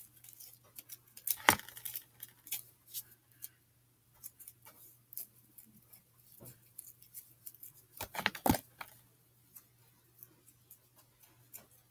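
Scattered light clicks and taps from handling slime-making containers and utensils, with two louder knocks about a second and a half in and near eight and a half seconds, over a faint steady low hum.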